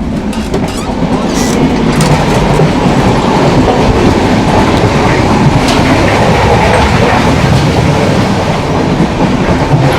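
Passenger train running on the line, with the loud steady rumble and rattle of the carriage and wheels on the rails and a few sharp clicks. It gets louder over the first two seconds.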